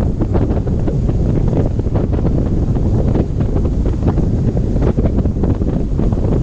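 Strong wind buffeting the 360° camera's microphone: a loud, constant low rumble broken by many quick sharp hits.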